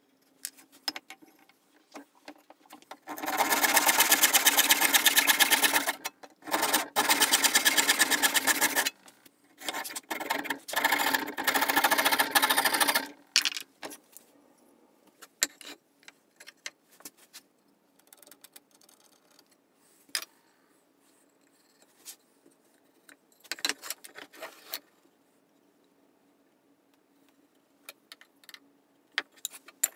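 Coping saw cutting oak with fast, even strokes in three runs of a few seconds each, then scattered light knocks and clicks of tools and wood on the workbench.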